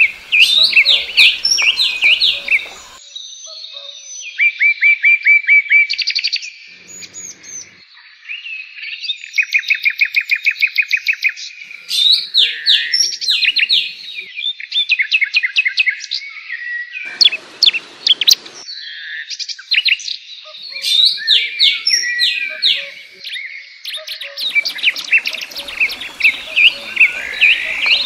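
Songbirds singing loudly and without a break: quick chirps, sweeping notes and fast trills of repeated notes. A short burst of scraping noise comes about seventeen seconds in.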